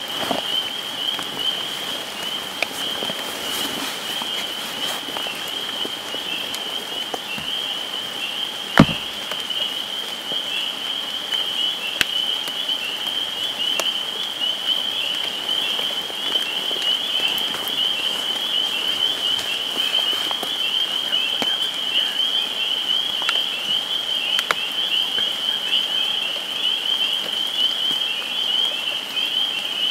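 A frog chorus calling without a break, a dense high trilling, over the patter of rain with scattered drop ticks. One sharp knock stands out about nine seconds in.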